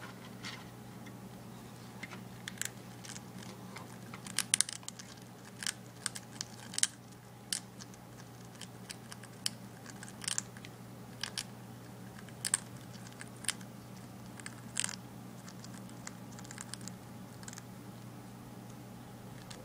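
Monk parakeet (Quaker parrot) biting and crunching a piece of food held in its foot: irregular sharp crunches, bunched most thickly through the middle, over a steady low hum.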